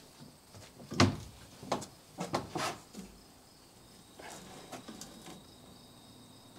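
Ears of corn being handled and hung up by their husks: a sharp knock about a second in, then several short rustles and crackles of corn husks, fainter ones later. A steady high insect trill runs behind.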